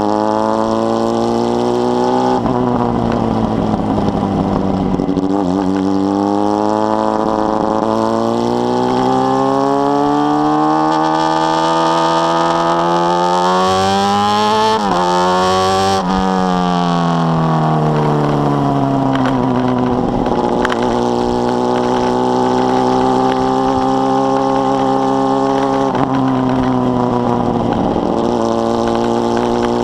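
Carbureted Honda Hornet 600 inline-four through a 4-into-1 exhaust, ridden under load. The revs rise through quick gear changes to a high peak about halfway, then fall away as the bike slows, and run steadier near the end.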